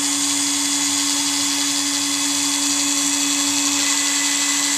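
Small CNC router spindle running with a steady whine, one constant tone, as a broken 60-degree engraving bit cuts a shallow pass into plexiglass.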